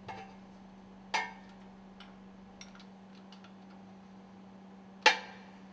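Sharp metal clinks and a few light ticks from a ratchet wrench and steel bolts being undone on a two-stroke engine's piston rod stuffing box. There is a clink about a second in, a few faint ticks in the middle, and the loudest clink near the end.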